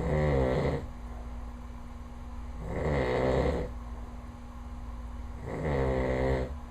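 A man snoring in his sleep, loud and regular: three snores about three seconds apart, each lasting under a second.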